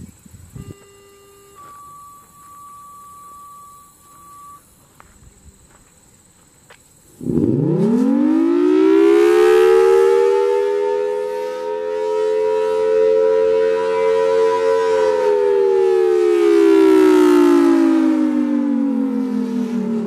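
FS&S Thunderbolt 1000AT rotating tornado siren starting up about seven seconds in: its pitch climbs quickly to a steady tone, holds, then falls slowly before rising again at the end, the rising and falling Attack signal. Its loudness swells and fades as the horn turns.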